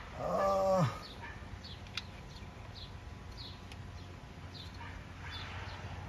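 A short whining vocal sound lasting under a second, held level and then dropping in pitch at its end. Faint high chirps repeat every half second or so, and a single sharp click comes about two seconds in.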